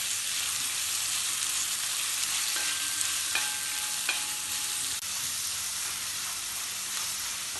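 Sliced onions sizzling in hot ghee in an uruli as they are stirred, a steady frying hiss. A few light metallic clinks ring briefly around three to four seconds in.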